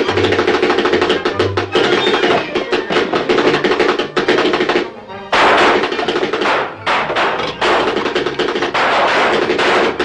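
Fast cartoon soundtrack music packed with rapid percussive hits, dropping away briefly about five seconds in and then starting up again.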